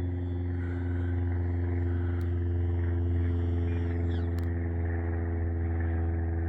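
A steady low mechanical hum, like a motor running at an unchanging speed, with a couple of faint clicks.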